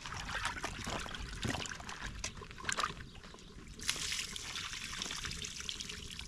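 Water trickling and splashing, with many small clicks and knocks; the hiss grows brighter about four seconds in.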